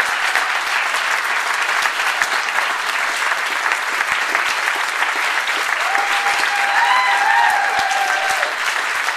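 Audience applauding steadily, with a drawn-out high-pitched call rising over the clapping for a couple of seconds in the second half.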